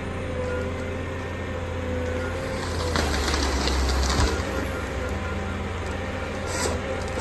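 Heavy wood-processing machine's engine running steadily, with a louder, rougher stretch of grinding noise between about three and four seconds in.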